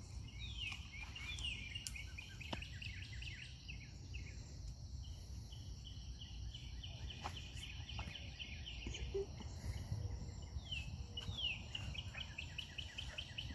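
A bird singing: three runs of quick, high, evenly repeated chirps, each run opening with a falling sweep, over a steady low rumble.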